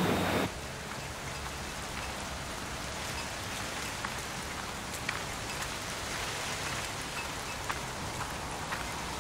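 Steady rain falling on wet pavement, an even hiss with scattered drops ticking. In the first half second, the hum of a meat-processing line's machinery cuts off abruptly.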